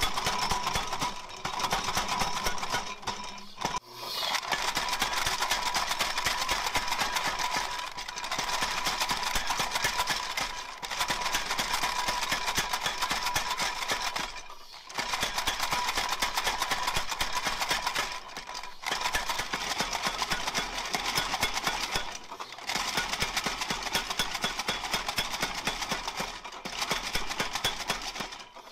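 Homemade power hammer with a 75-pound ram pounding a red-hot steel bar between its dies in rapid strings of blows, with short pauses every few seconds.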